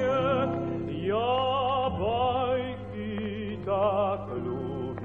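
Mandolin orchestra music from a 1950s–60s recording. A melody line swoops upward into notes held with wide vibrato, over a steady accompaniment.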